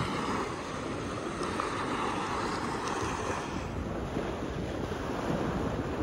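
Small waves breaking and washing up a sand beach, with wind rumbling on the microphone.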